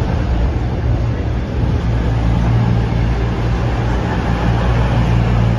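Two coupled CrossCountry Class 220 and 221 Voyager diesel-electric multiple units running along the platform as they arrive. Their underfloor diesel engines give a steady low hum over the rumble of the wheels on the rails.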